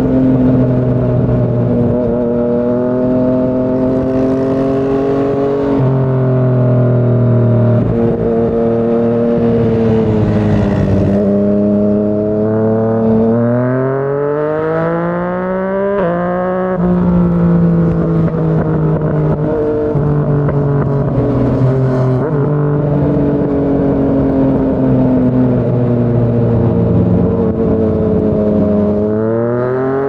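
Yamaha MT-09's three-cylinder engine through a Yoshimura R55 slip-on exhaust, on the move: steady cruising revs with a few sudden changes in pitch. About halfway through the revs climb in a long rising pull under acceleration, then drop back to a steady cruise. The revs climb again near the end.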